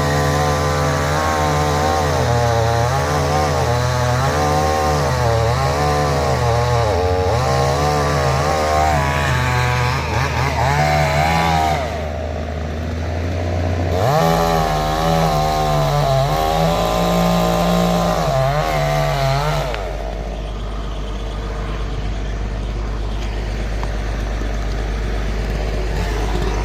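Chainsaw cutting into a coconut palm trunk, its pitch rising and falling as it bogs and revs in the cut. It breaks off about twelve seconds in, cuts again for several seconds, then stops about twenty seconds in. A steady low engine hum runs underneath and drops in pitch partway through.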